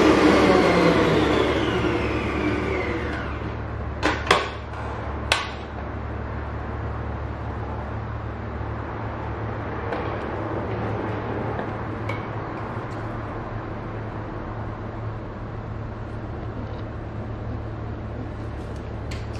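Stand mixer whipping buttercream in a stainless steel bowl, its motor whine falling in pitch over the first few seconds as it slows down. A few sharp clicks follow about four to five seconds in, then only a low steady hum.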